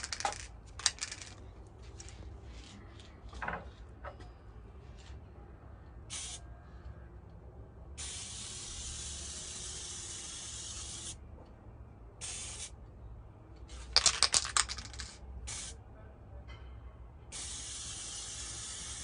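Aerosol spray paint can spraying in hissing bursts: two short ones, one of about three seconds, and one of about two seconds at the end. The can is shaken near the start and again about two-thirds through, its mixing ball rattling quickly.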